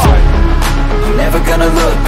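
Hip hop backing music with a heavy, deep bass line that comes in at the start.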